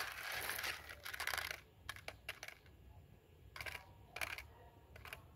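A cat eating dry kibble from a foam tray: rustling for the first second and a half, then short, irregular crunching clicks as it chews the hard pellets.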